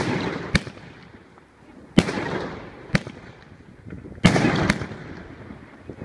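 Lucky Fireworks 724-shot mixed-calibre cake (30, 38 and 50 mm shells) firing: six sharp bangs, irregularly spaced over about five seconds. The louder ones are each followed by a crackling tail that fades within a second or so.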